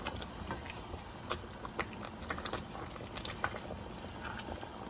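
Spatula stirring chicken pieces and sliced capsicum in a pot of simmering gravy: irregular small wet clicks and squelches.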